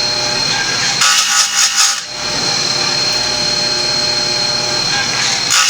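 Oregon electric chainsaw chain sharpener running steadily with a constant motor whine, its grinding wheel brought down onto a cutter twice: once about a second in for about a second, and again near the end.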